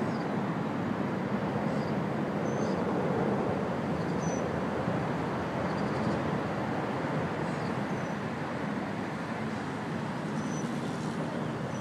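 Steady outdoor traffic noise with no distinct events, with faint short high chirps every couple of seconds.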